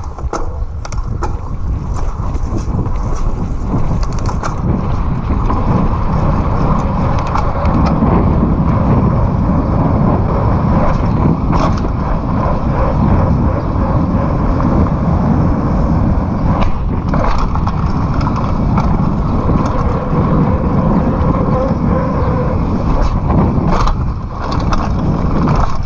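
Mountain bike rolling at speed: wind rushing over the camera microphone and tyres running over the pavement, with occasional clicks and rattles from the bike.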